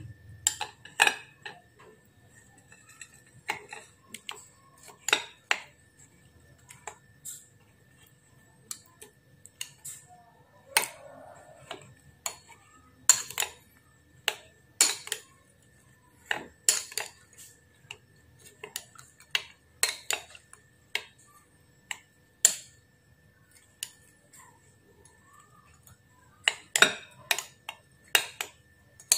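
A spoon stirring hot water with grated palm sugar and tamarind in a drinking glass to dissolve them, clinking against the glass in short, ringing taps at an uneven pace of about one or two a second.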